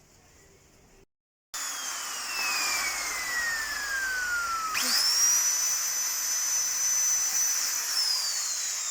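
Power drill running with a high motor whine: the whine sinks slowly as the motor is loaded, jumps back up when the trigger is squeezed again about five seconds in, holds steady, then sinks again near the end, as screws are driven in to fit the feet. The sound starts abruptly after a second of near quiet.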